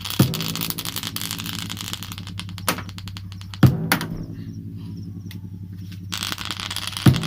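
JBL Flip 3 Bluetooth speaker playing a bass-heavy test track: a held low bass note with a fast ticking texture over it, and a heavy beat three times, about every three and a half seconds.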